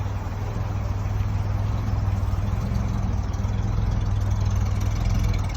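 1950 Chevrolet truck's engine idling steadily with an even low hum.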